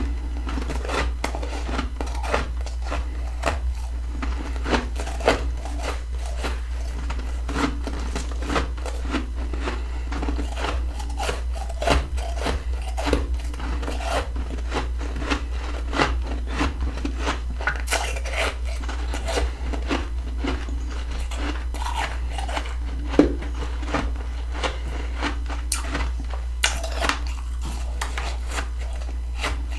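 Close-miked crunching and chewing of fluffy freezer frost, many irregular sharp crunches one after another, with a steady low hum underneath.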